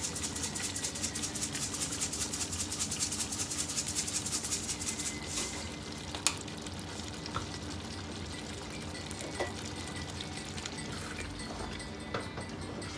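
Dried thyme shaken from a spice container, a fast, even rattle that stops about five and a half seconds in. One sharp click follows, then a low hum with a few faint knocks.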